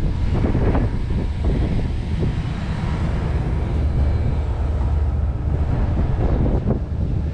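Wind buffeting the microphone over a steady low rumble from the fishing vessel underway at sea.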